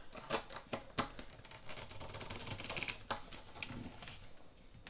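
A few sharp, light clicks and taps over faint rustling as a screwdriver backs off a hinge bolt in a wooden sewing machine carry case and the case is handled.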